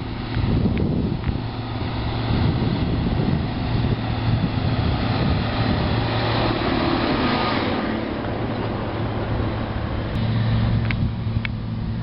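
Big John Deere four-wheel-drive tractor on dual wheels, towing a silage wagon, driving past on a paved road: a steady diesel engine drone with tyre and wagon noise that swells to its loudest about six to eight seconds in as it goes by, then falls away. A few sharp clicks near the end.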